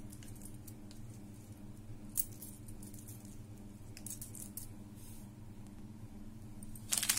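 Faint, sparse clinks of gold-plated metal necklaces being lifted and handled, over a steady low hum. Near the end, loud crinkling of a plastic packet starts as it is picked up.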